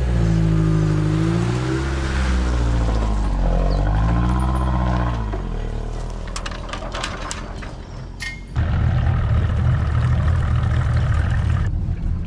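A vehicle engine revving, its pitch sweeping down and back up, which then eases off. After about 8.5 s comes a steady low rumble with wind and water noise from a boat under way.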